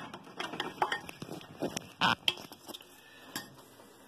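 A spoon clinking and scraping against a ceramic plate while it digs through a heap of rice. The sound is a string of irregular short taps and scrapes, loudest near the start and again about two seconds in.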